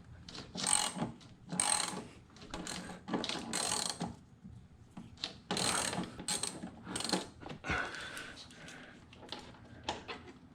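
Socket ratchet wrench clicking in repeated strokes about a second apart as a tight 15 mm bolt is worked loose.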